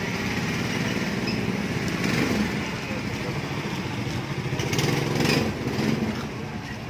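Steady low drone of a small engine running nearby, with a few short knocks and scrapes about five seconds in from a knife cutting a fish on a wooden chopping block.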